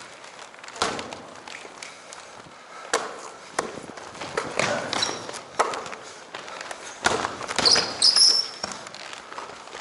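Basketball bouncing on a hardwood gym floor, with irregular thuds of running feet and a few sharp, high sneaker squeaks, loudest a little before the end.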